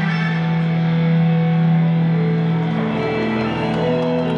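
Music with long held notes over a steady low note; a higher line of shifting notes comes in about two seconds in.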